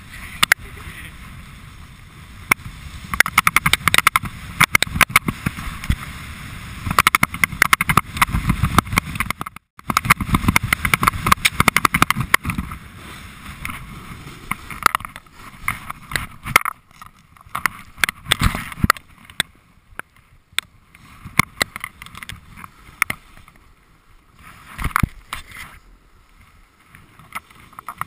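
Snowboard edges scraping and chattering over hard-packed groomed snow during a run, with wind noise on the microphone. It comes in rough, uneven surges, strongest through the first half and then in shorter bursts.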